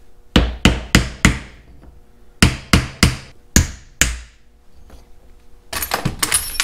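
Ball-peen hammer striking a wooden block held against a Farmall Super C hydraulic pump body in a vise: nine blows in two runs of four and five, driving the pump's internal parts out. Near the end, a brief clatter of loose metal pump parts.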